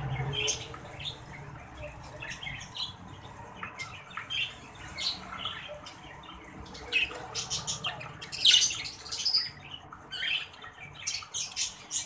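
Caged exhibition budgerigars chattering, a steady run of short chirps and squawks. The loudest flurry of calls comes about eight to nine seconds in.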